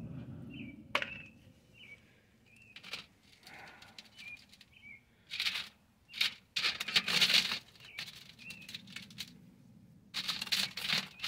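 Small pieces of gem ore clattering and rattling against a wire-mesh sifting screen in a metal tub as a hand stirs through them, in several bursts, the biggest about halfway through and near the end. A small bird chirps faintly and repeatedly in the background.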